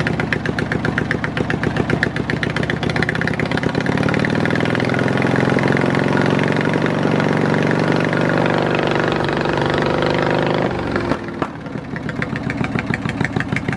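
Straight-piped opposed-twin lawn mower engine, exhausting through two pipes that point in opposite directions, idling with a fast, lumpy pulse. About four seconds in it is revved up and held at a steady higher speed for several seconds, then drops back to idle near the end.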